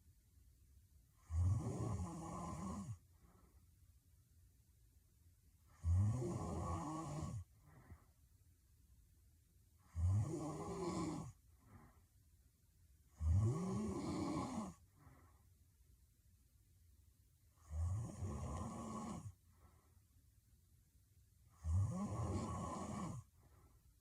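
A young woman snoring heavily in her sleep: six loud snores about every four seconds, each starting with a pitch that rises.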